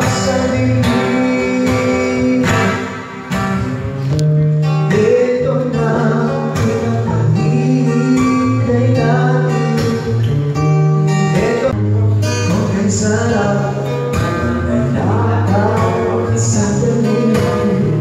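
Live band music in a small bar: singing over guitar, with a bass line and a steady beat.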